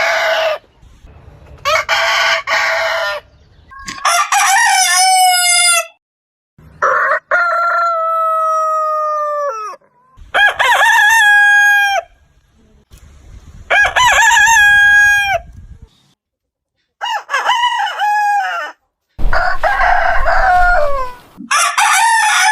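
Roosters crowing, about eight separate cock-a-doodle-doo calls one after another, each lasting a second or two with short silent gaps between. One crow near the middle is longer, held for about three seconds before dropping off.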